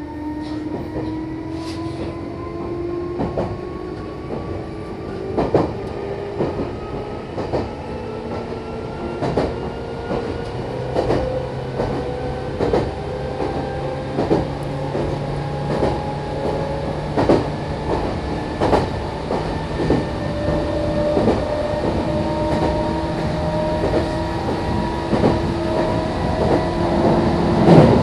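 Meitetsu electric train running between stations, its motor whine rising slowly in pitch as the train gains speed. The wheels clack over rail joints about every second and a half, with a louder cluster of clacks near the end.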